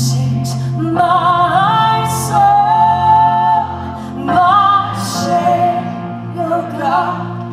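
A woman singing live into a microphone, with long held notes and ornamented melodic runs, over sustained backing chords.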